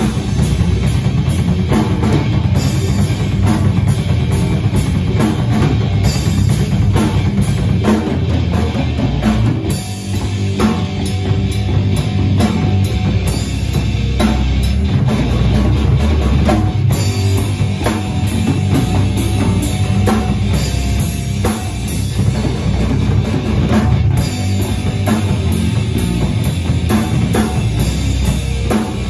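A rock band playing live, with a drum kit driving a steady beat under guitar.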